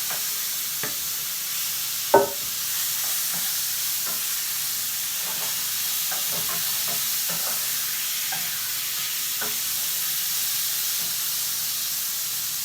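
Chicken breast frying in a hot pot with a steady sizzle, while it is stirred: scattered light clicks of a utensil against the pot and one sharp knock about two seconds in.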